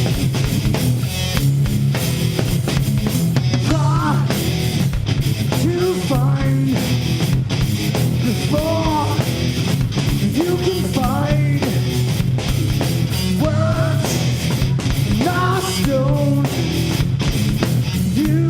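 Live rock band playing loud, with distorted electric guitars, bass and drums hitting a steady beat. A male singer comes in about three and a half seconds in and sings in short phrases.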